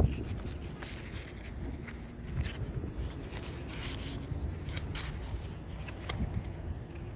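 Baseball trading cards being handled and flipped through, light rustles and flicks of card stock, over a low rumble of wind on the microphone.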